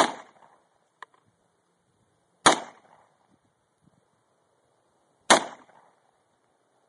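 Three gunshots fired outdoors, spaced about two and a half to three seconds apart. Each is a sharp crack with a short echoing tail.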